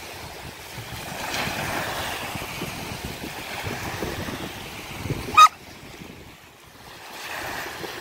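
Small waves washing onto a sandy shore, swelling and fading, with wind buffeting the microphone. About five seconds in, a single short, sharp, high-pitched sound is the loudest thing heard.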